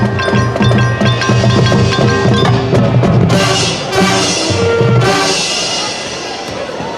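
High school marching band playing: brass and drums with the front ensemble's mallet percussion ringing over them, the music thinning out near the end.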